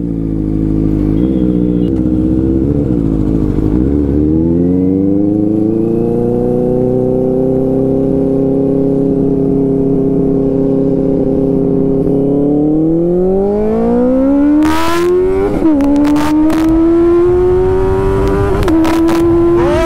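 Benelli 600i inline-four engine through an SC Project slip-on exhaust, accelerating hard under load. The pitch climbs, holds steady for several seconds, then climbs again with short dips at gear changes. A few sharp cracks come near the end.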